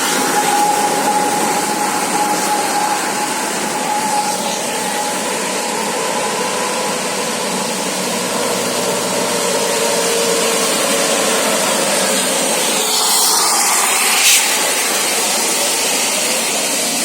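Steady roar of road traffic from buses in convoy, engines and tyres together. A faint steady whistling tone sounds over the first few seconds, and a vehicle passes close by about thirteen seconds in.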